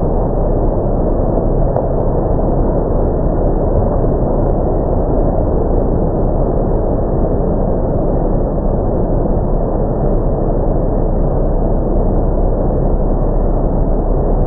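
Automatic car wash running: water jets spraying and cloth brushes washing a car, a steady rushing noise with no let-up.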